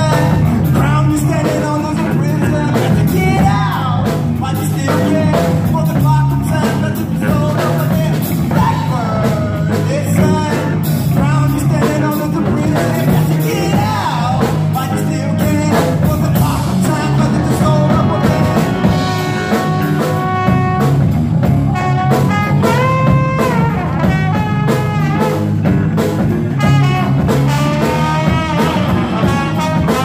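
Live band playing: a male singer over electric guitar, electric bass, drum kit and trombone. The vocal line runs through much of it, with several long held notes in the second half.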